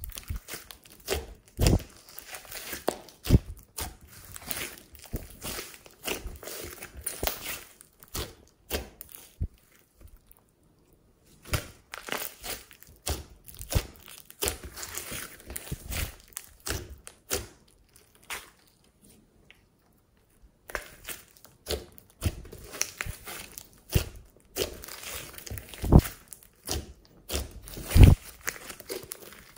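Glossy slime being kneaded, squeezed and stretched by hand: irregular sticky crackles and pops, with a few louder snaps and two brief pauses.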